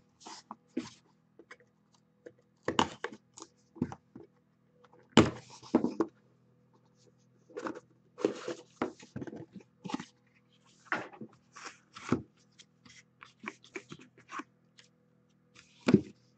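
Handling of a cardboard trading-card box and a clear plastic card holder: scattered scrapes, rustles and taps at irregular moments, with sharper knocks about three and five seconds in and again near the end.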